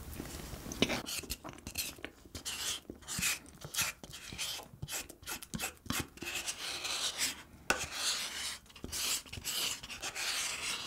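Close-miked mouth sounds of chewing soft whipped-cream cupcake: irregular soft rubbing strokes. Near the end a wooden spoon scrapes into the paper cup.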